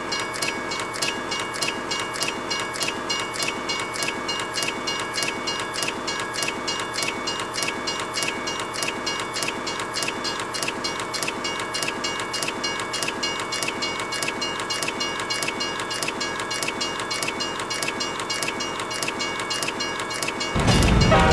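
Railway level-crossing warning bell ringing in rapid, even strikes. Just before the end a train horn starts blaring, much louder.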